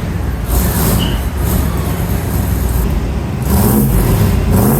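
Squarebody pickup's engine running loudly through its exhaust, revving up a little past halfway.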